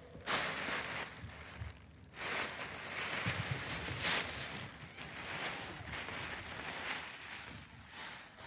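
Crumpled tissue paper rustling and crinkling in fits and starts as kittens tumble and dig through a pit full of it, with a brief lull about two seconds in.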